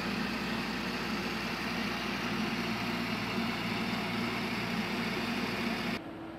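Engine of the S-125 Newa SC's tracked launcher vehicle running steadily at idle. It cuts off suddenly near the end, leaving a quieter steady hum.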